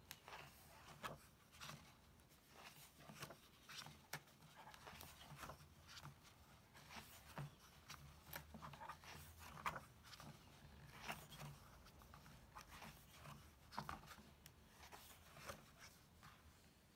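Faint rustling and soft ticks of paper as the pages of a book are handled and turned, over a low steady hum.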